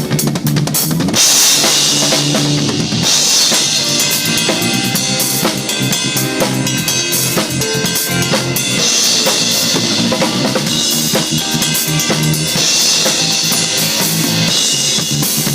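Full drum kit played in a steady groove, with kick and snare strokes and cymbal wash that swells and drops back several times, over backing music with sustained pitched notes.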